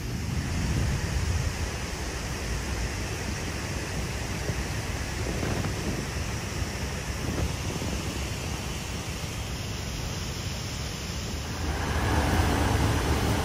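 Steady rushing outdoor background noise with a low rumble, growing louder about twelve seconds in.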